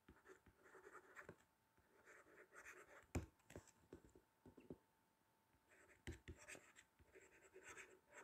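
Faint scratching of handwriting strokes as a stylus writes across a tablet surface, with a few light taps.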